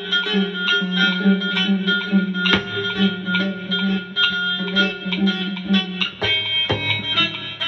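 Music: a pop track led by plucked guitar notes in a quick, even pattern over a bass line.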